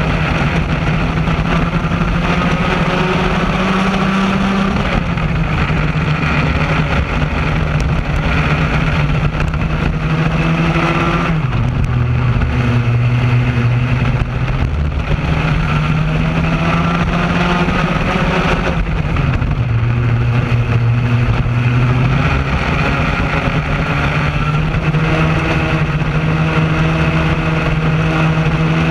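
Racing kart's two-stroke engine running hard, heard from onboard. Its pitch holds high, drops twice (about a third and two thirds of the way through) as the kart slows for corners, then climbs back as it accelerates.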